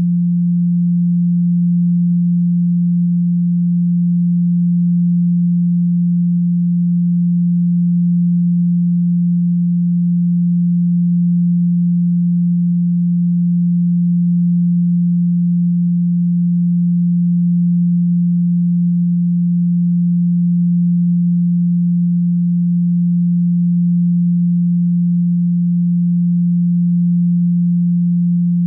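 Steady 174 Hz Solfeggio-frequency sine tone: a single low pure pitch held unchanged throughout.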